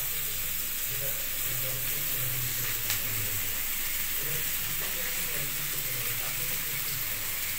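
Sliced onions sizzling steadily as they fry in oil in an iron kadai, with one light click about three seconds in.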